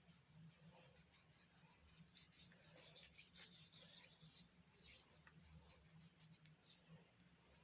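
Faint, gritty rubbing of a baking soda and lemon paste being massaged over the skin of a hand in circular strokes, a quick series of soft scratchy swishes that thins out near the end.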